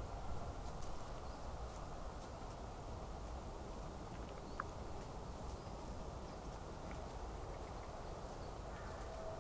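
A few faint crackles and rustles of dry fallen leaves as a common wood pigeon forages through leaf litter, over a steady low background hiss.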